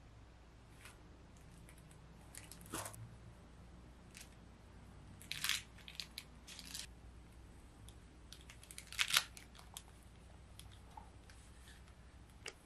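A cake knife cutting through a frosted chocolate layer cake and scraping on the cardboard base underneath: a few short scrapes and crunches, the loudest about nine seconds in.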